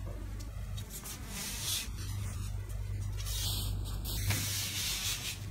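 Hands rubbing and smoothing a foam sheet down onto a glued door trim panel, a dry rubbing hiss in strokes that is loudest about a second and a half in and again near the end. A steady low hum runs underneath.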